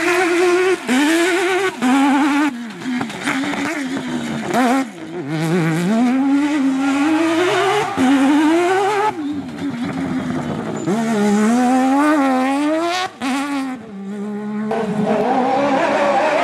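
Rally car engines revving hard on a dirt stage. The pitch climbs through each gear and drops sharply at every shift or lift, over tyre and gravel noise as the cars slide through corners. The note changes abruptly a few times as a different pass, and near the end a different car, takes over.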